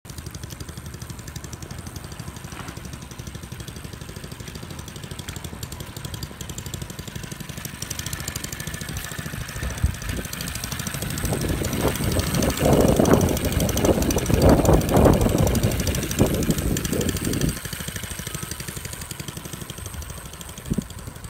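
Doodlebug minibike engine on a Razor mini chopper running as the bike is ridden; it grows clearly louder for several seconds past the middle as the bike comes close, then drops back as it rides away.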